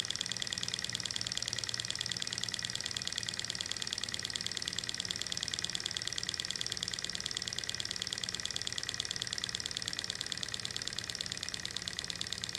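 Tarot large-scale Stirling engine model running steadily with a rapid, even ticking from its crank and linkage. Its burner flame is out, so it is running on the heat stored in its hot stainless cylinder.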